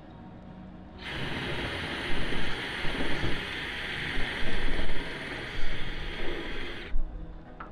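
Power drill boring into the sheet-metal rear door of a van, running steadily with a hiss for about six seconds, starting about a second in and cutting off suddenly near the end.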